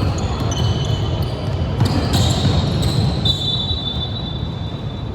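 Basketball game in play: a basketball bouncing on a hardwood court and sneakers squeaking, with several sharp knocks.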